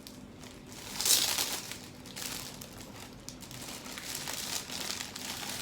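Gift packaging crinkling and rustling as it is pulled open by hand, with the loudest rustle about a second in.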